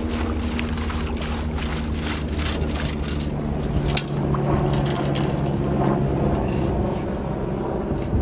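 A beach sand scoop being shaken to sift wet sand and shell bits, with water sloshing and grit rattling against the scoop, over a steady low rumble. The rattling is busiest in the first few seconds and thins out after.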